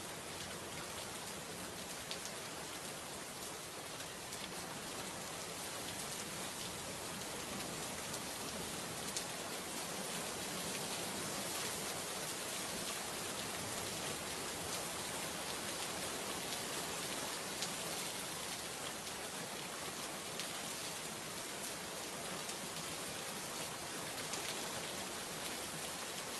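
Steady rain falling, a dense even hiss with scattered individual drop ticks, swelling slightly a few seconds in.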